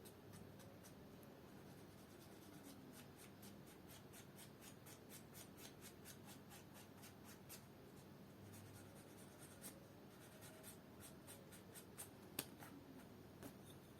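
Faint scratching and quick light ticks from small hand work on a leather shoe, at about four or five ticks a second through the middle, with one sharper click near the end.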